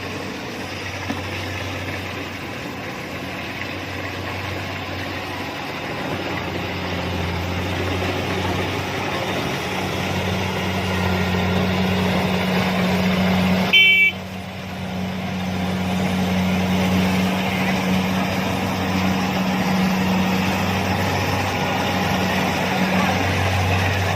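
Kubota DC-70 combine harvester running steadily under load, a constant engine hum that slowly grows louder over the first half. A short break comes about halfway through, after which it runs on at an even level.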